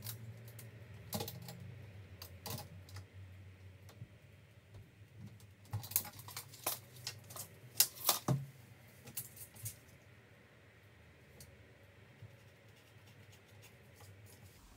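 Light, irregular clicks and taps of a tape measure and pencil being handled against a wooden door while marking out a lock position, thickest and loudest in the middle and sparse near the end.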